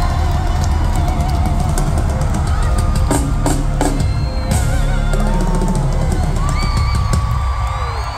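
Loud amplified live concert music with heavy bass and pounding drums. The bass and drums drop away near the end.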